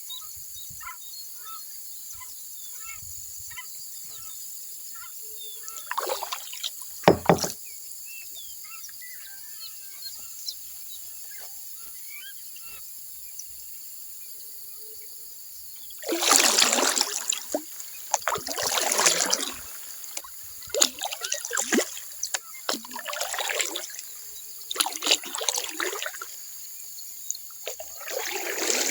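Small birds chirping over a steady high hiss, with a single paddle splash about six seconds in. From about halfway, kayak paddle strokes dipping and sloshing in the water every couple of seconds.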